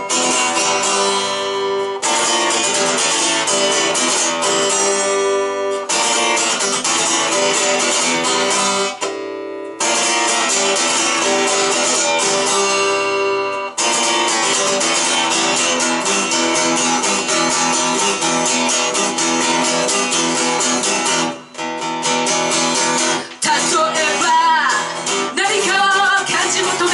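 A rock band playing live, led by strummed guitar chords. The music stops short several times and comes back in, and singing starts near the end.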